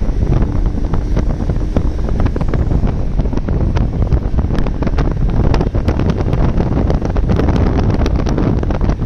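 Loud wind buffeting the microphone: a constant low rumble with crackling, as when filming from a moving vehicle.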